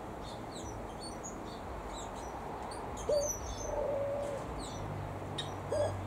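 A dove cooing twice: each coo starts with a quick rise in pitch and is then held for about a second. Short high chirps and twitters from small aviary birds run underneath throughout.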